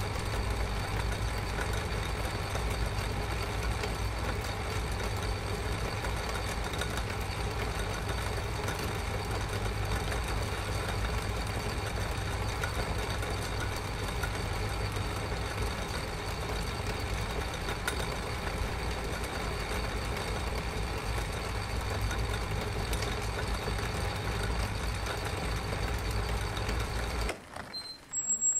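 Metal-turning lathe running steadily, a low hum and whirr from its belt-driven stepped pulley and spindle, that cuts off about a second before the end. A short high squeak follows as a wooden barn door swings open.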